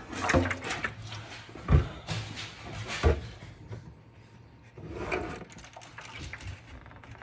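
Plastic humidifier tank and its cap being handled and fitted back together: rattling and scraping with clicks, and two sharp knocks a little over a second apart.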